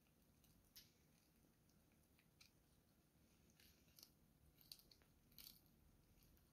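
Faint, scattered crunches and clicks of a cat's teeth gnawing a monkfish bone, about half a dozen small crunches, several of them bunched together a little after the middle.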